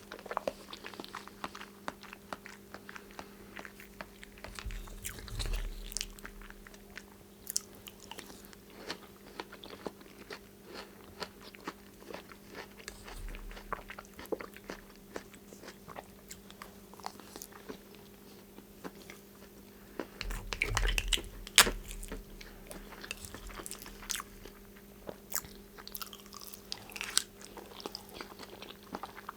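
Close-miked eating: repeated bites and chewing of food, many small clicks and crunches, with a steady low hum underneath.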